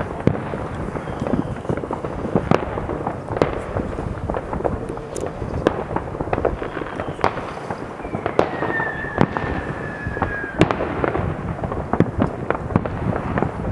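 Many fireworks going off at once at various distances: a continuous scatter of bangs, pops and crackles. About eight seconds in, a whistling firework sounds for a couple of seconds, its whistle falling slightly in pitch before ending in a sharp bang.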